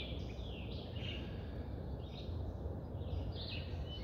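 Small birds chirping faintly over a low, steady rumble.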